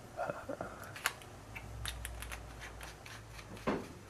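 Small scattered clicks and clatter of AAA batteries being loaded into the slim tube of a General cordless screwdriver and its end cap being fitted and screwed on. A short vocal murmur near the end.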